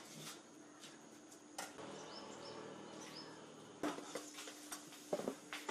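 Quiet ambience of self-service at a buffet: a few sharp clinks of serving spoons against steel trays and plates, and a bird giving three short chirps about two to three seconds in.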